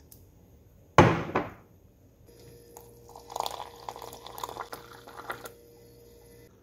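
Water dispenser running a thin stream of water into a ceramic mug for about three seconds, over a faint steady hum, then stopping. Before that, about a second in, there is a single loud knock.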